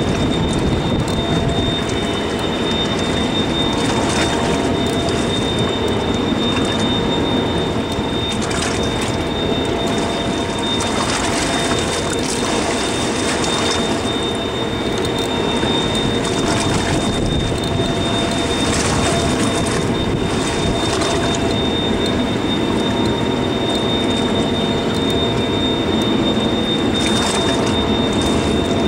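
Steady machinery hum of the boat under way or idling, with a high thin whine on top and wind and sea noise on the microphone. Several brief louder rushes pass through it.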